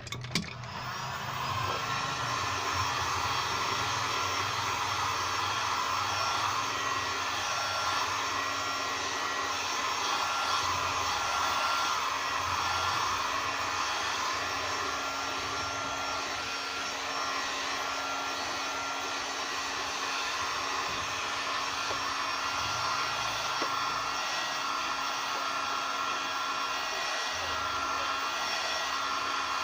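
A heat gun starts up and blows steadily, with a constant motor whine over the rush of air.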